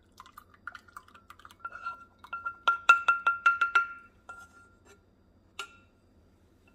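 A utensil clinking against cookware: light taps and scrapes, then a quick run of about six ringing clinks, and a single clink a couple of seconds later.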